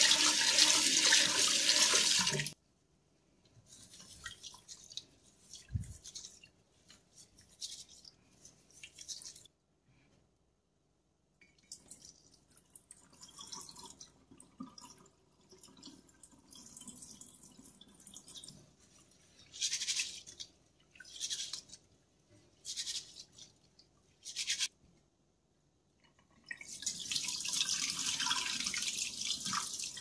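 Tap water running into a stainless steel pot of rice, stopping suddenly after about two and a half seconds. Then a long stretch of quieter, irregular swishes, splashes and trickles as the rice is rinsed and the cloudy water is poured off into the sink drain. Near the end comes a steady stream of water pouring for a few seconds.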